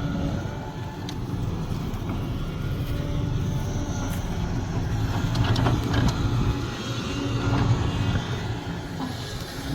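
Sumitomo SH370LHD-6 hydraulic excavator's diesel engine running steadily, with a few short knocks in the second half.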